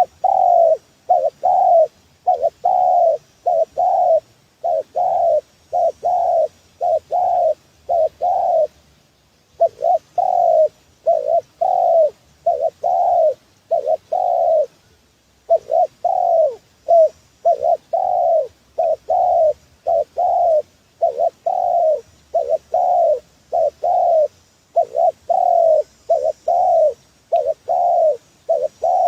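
Spotted dove cooing: a lure call of many short coos, each falling slightly in pitch, repeated in quick runs with short pauses about nine and fifteen seconds in.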